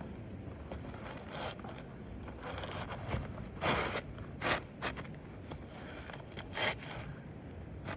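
Scraping and rustling of asphalt roof shingles being worked loose and slid into place, with a few short, louder scrapes around the middle.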